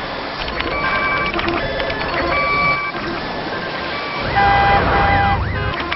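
Electronic beeps and alarm tones at several pitches, repeating in short patterns. About four seconds in, a siren-like tone sweeps quickly up and down over a low rumble, the loudest part.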